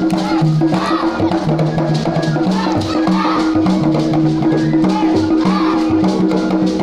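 Imbalu dance music: voices singing over shaken rattles and drums, with a low two-note bass figure repeating under a steady held tone.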